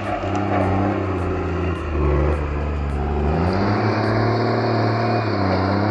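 Diesel engine of a heavy logging machine running steadily, its pitch dropping about two seconds in and climbing back up about a second later.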